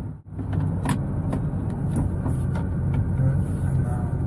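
Nissan GT-R's twin-turbo V6 running steadily at idle, a low even rumble, with a few light clicks over it.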